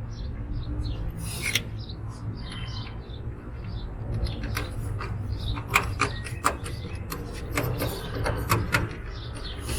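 Bolts being turned in by hand with a hand tool: metal scraping and rubbing, with irregular sharp clicks that grow busier about halfway through.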